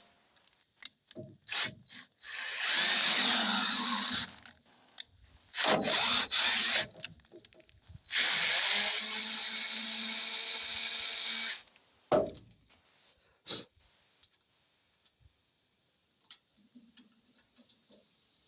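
Power drill run in three bursts, the last and longest about three and a half seconds of steady whirring, driving a thread-cutting tap or die through a tight spot in 3/8-inch threads. Two sharp clicks follow, then it goes quiet.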